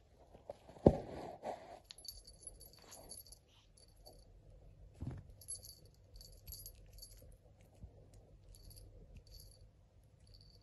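Faint, high jingling in short stretches while a cat plays with a dangled rubber toy snake. There is a sharp bump about a second in and a softer one about five seconds in.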